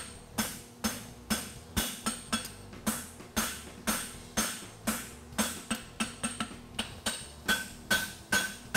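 Hand hammer striking a red-hot 5/8-inch square steel bar on an anvil, forging a horseshoe heel. The blows come in a steady rhythm of about two a second, each with a short ring from the anvil.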